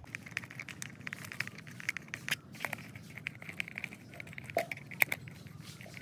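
Small screwdriver tightening screws into a plastic toy car body: many quick, irregular clicks and light scrapes of metal on plastic, with a sharper click about five seconds in.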